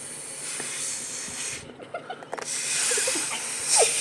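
Two long, breathy blows of air through a blow pen, a hiss of breath spraying the ink; the second blow, about two and a half seconds in, is louder.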